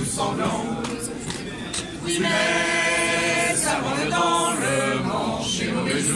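A crowd of protesters singing a chant together, many voices in unison, growing louder and holding long notes from about two seconds in.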